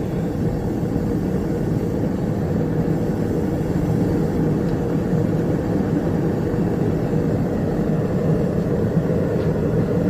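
Propane burner firing into a small gas-fired metal-melting kiln, running steadily with a low, even rush, turned up a little to bring the kiln back up to melting heat.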